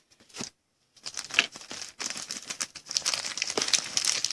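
Crinkling and rustling of thin plastic as trading cards are handled, starting with a couple of faint clicks and becoming a dense, rapid crackle from about a second in.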